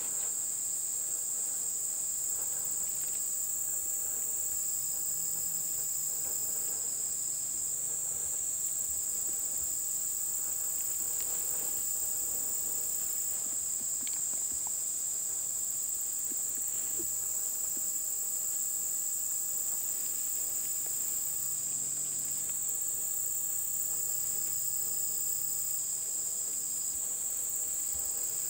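Steady chorus of crickets and other insects: a continuous high-pitched drone, with a second, lower insect call switching on and off in stretches of a few seconds.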